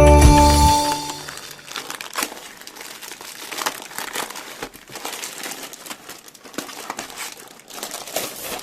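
Background music stops about a second in, giving way to packaging crinkling and rustling as it is handled and opened, with scattered small crackles.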